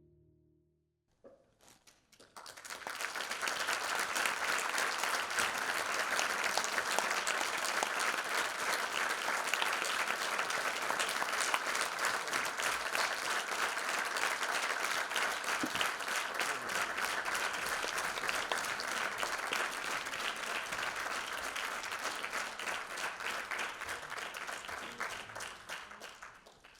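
Audience applauding at length: clapping starts about two seconds in as the music stops, holds steady, and dies away near the end.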